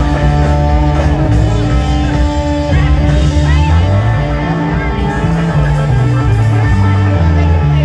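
Rock music with guitar and a moving bass line, loud and steady.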